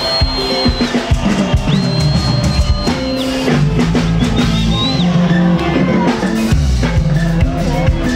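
Live band music: a drum kit beat with bass, electric guitar and shakers, and a high held note that sounds three times in the first five seconds.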